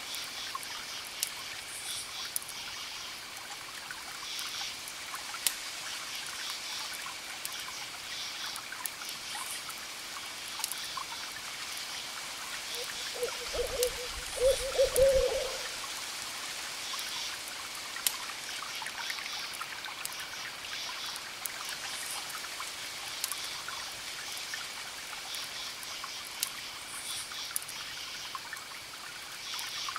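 Wood fire crackling, with scattered sharp pops over a steady trickling hiss. Around the middle an owl hoots several times, the loudest sound.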